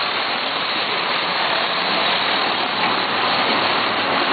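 Steady city street noise, a loud even hiss of traffic with no distinct events.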